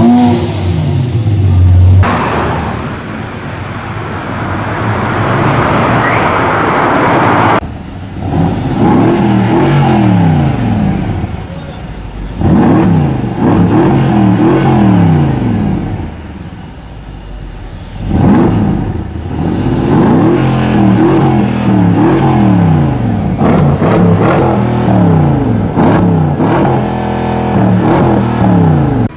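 High-performance car engines accelerating hard through the gears: the revs climb and fall back at each upshift, again and again. Several separate runs follow one another with abrupt changes between them.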